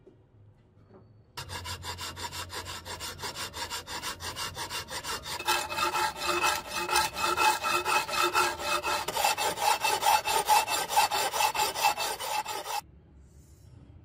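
Hand filing on steel, rapid back-and-forth rasping strokes at about four a second, with a faint metallic ring. It starts about a second in, grows louder about halfway, and cuts off shortly before the end.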